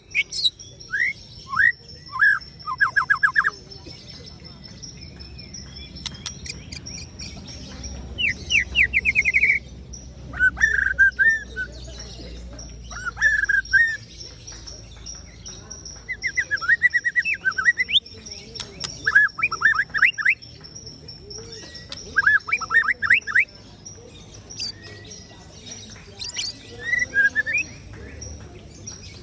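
White-rumped shama singing: varied phrases of clear whistled notes and rapid trills, delivered in short bursts with brief pauses between them.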